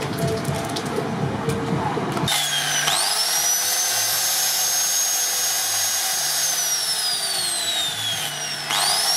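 Maktec angle grinder with a rubber backing pad working the steel head of a hammer. It spins up with a fast-rising whine about two seconds in and runs at a steady high whine. Its pitch then sinks gradually before it spins back up just before the end. The first two seconds are a scratchy rubbing noise.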